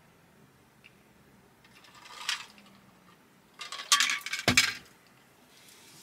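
Drink bottle being lowered and handled, clinking and clattering in two quick spells a little under four seconds in. About two seconds in there is a short breathy sound, likely an exhale after drinking.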